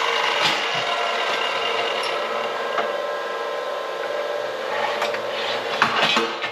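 A power tool grinding or sanding steel: a steady rasping noise, with a few sharp knocks near the end.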